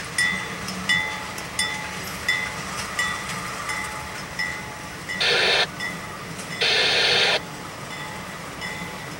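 Freight locomotive bell ringing steadily, one ding about every 0.7 seconds, as the locomotives roll slowly through the yard. Two short loud bursts of hiss come about five and seven seconds in.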